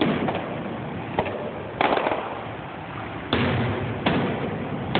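Aerial fireworks shells bursting: about five sharp bangs spaced a second or so apart, each trailing off in a rumbling echo.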